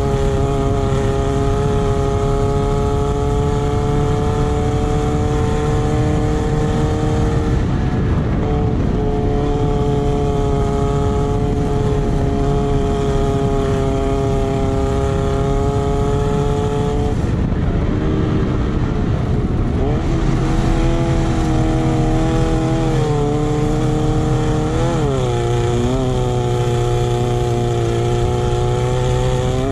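Off-road racing buggy's engine heard from on board at full race speed, holding a steady high note for about seventeen seconds. The note then drops and climbs back as the throttle is eased and reopened, and dips briefly several more times near the end, over a steady low rumble.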